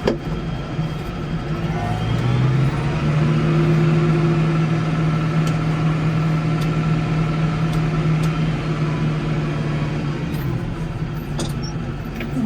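Case 115 garden tractor's engine running under load, revving up about two seconds in, holding a steady higher speed, then easing back slightly near the end.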